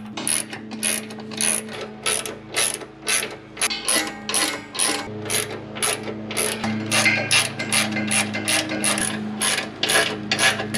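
Ratchet wrench with a 13 mm socket clicking in quick, repeated back-swings as the rock slider's mounting bolts are run in, about two to three clicks a second.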